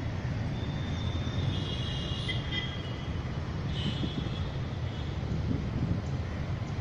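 Steady low rumble of a moving vehicle heard from on board. A few short high squeaks or chirps come about one and a half seconds in and again near four seconds.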